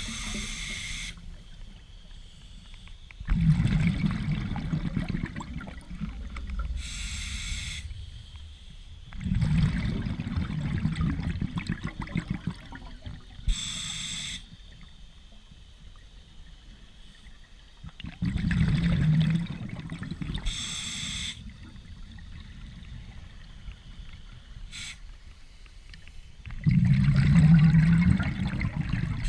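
Scuba diver breathing through a regulator underwater: a short hissing inhale, then a longer, louder bubbling exhale, repeating about every eight seconds, four breaths in all.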